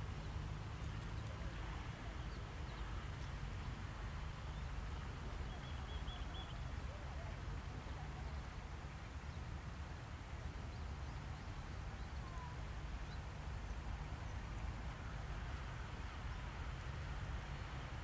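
Steady low outdoor rumble with a faint hiss, and a few faint, brief bird chirps.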